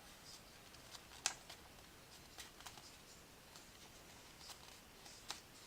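Near silence with a few faint, scattered clicks and ticks; the sharpest comes about a second in and another near the end.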